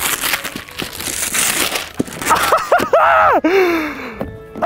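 Wrapping paper being ripped and crumpled off a gift box for about two seconds, then a man's loud, excited wordless shouts, sliding up and down in pitch.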